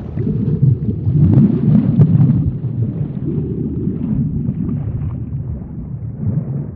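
Low rumbling underwater ambience sound effect, loudest over the first two seconds or so and easing off after.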